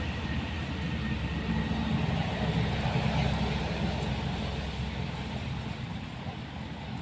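Road traffic passing: a low, steady rumble that builds a couple of seconds in and slowly fades near the end.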